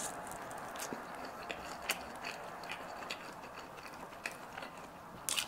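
Close-miked chewing of meat with wet mouth smacks and sharp clicks at irregular times, one of the loudest just before the end, over a steady hiss.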